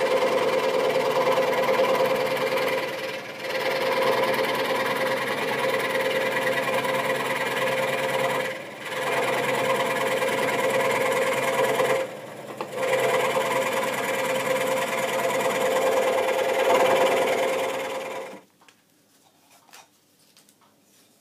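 Scheppach Decoflex electric scroll saw running, its blade cutting through a thin wooden board, a steady buzzing hum that dips briefly three times. It stops abruptly about 18 seconds in.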